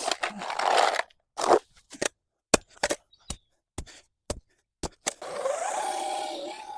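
Clearing overgrowth from a path: a long scrape, then a run of short, sharp scrapes and snaps at irregular intervals. About five seconds in a steady noise with a wavering tone takes over.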